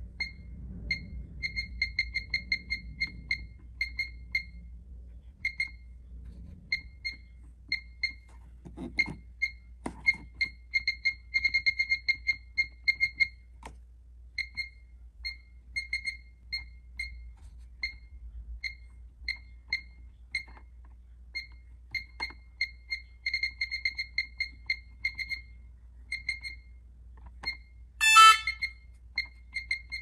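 Pyronix alarm keypad beeping at each key press: short high beeps, some single and some in quick runs as zone names are typed in letter by letter. About two seconds before the end comes one louder beep of several pitches.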